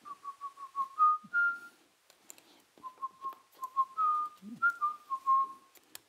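A person whistling a tune: phrases of quick short notes that climb in pitch at the end of each phrase, twice over. Light clicks of small tools being handled sound between the notes.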